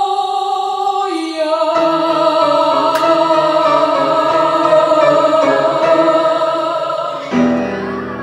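A singer holding long, steady notes over grand piano accompaniment in the closing phrase of a song. The piano comes in under the voice about two seconds in, and the music winds down near the end.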